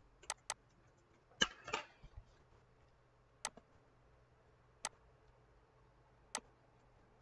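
Sharp single computer mouse clicks, spaced out and about one every second and a half in the later part, with a brief noisy rustle near two seconds in, over a faint steady low hum.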